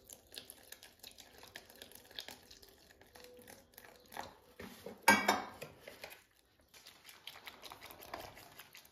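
Hand stirring thick, wet alginate moulding paste in a plastic bucket: faint squelching with many small clicks. A louder short clatter comes about five seconds in.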